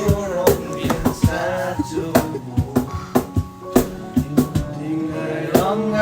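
Music: a song with a steady drum beat, about two to three hits a second, under a sung melody.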